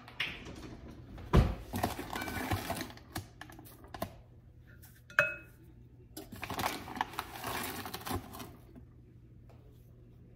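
Sugar being scooped and levelled with a measuring cup and spoon and tipped into a glass mixing bowl: a sharp knock about a second in, stretches of scraping and rustling, and a short ringing clink of the cup against the glass bowl about five seconds in.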